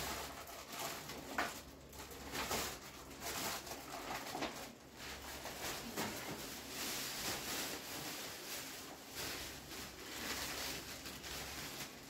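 Rustling and light knocks of plastic toys and their packaging being handled and moved about.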